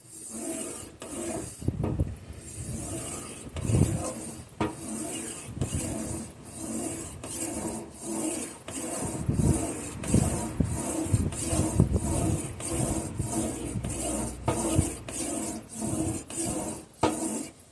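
Whetstone of an Anystone guided sharpener stroked back and forth along a knife edge, an even run of strokes a little under two a second, with a few low knocks mixed in.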